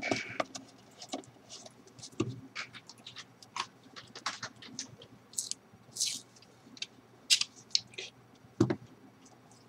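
Irregular clicks, taps and short scrapes of small parts and tools being handled on a work surface, with two sharper clicks near the end.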